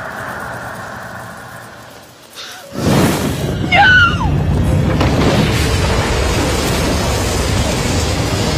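Dramatic soundtrack: soft music, then a sudden loud blast about three seconds in that carries on as a heavy rumble, with a woman's scream just after it.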